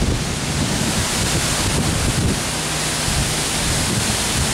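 Strong hurricane wind rushing steadily through trees and palms, with low rumbling wind buffeting on the microphone.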